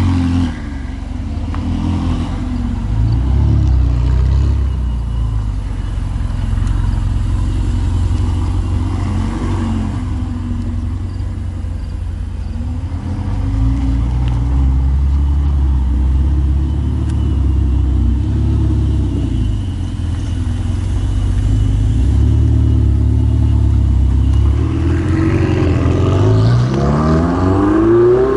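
Ferrari engine running with the revs rising and falling, then accelerating hard near the end with a steep rising pitch.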